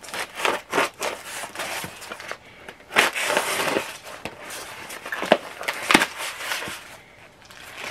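Scissors cutting into paper wrapping, then the paper rustling and crinkling as the item is opened by hand, with a few sharp snips and clicks.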